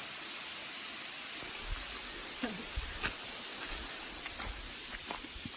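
Steady rushing of Issaqueena Falls, with a few faint low thumps over it.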